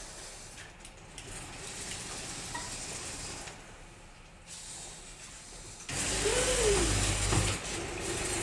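Small electric motors of a stage robot whirring faintly as it turns and moves its arms. About six seconds in, a louder noise starts suddenly, with a brief tone that rises and then falls.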